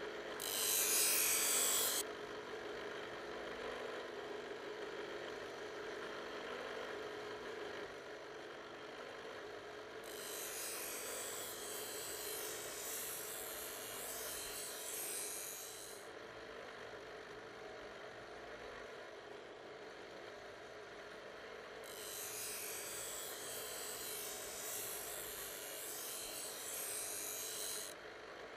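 Bench grinder running with a steady hum while a steel knife blade is pressed to its spinning wheel, giving a loud rasping grind for about a second and a half near the start. Two longer, quieter hissing stretches of about six seconds each come later.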